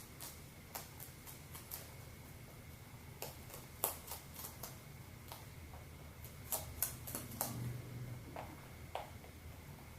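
A pet chewing and crunching food: irregular crisp crunches and clicks, coming in clusters about four seconds in and again around seven seconds.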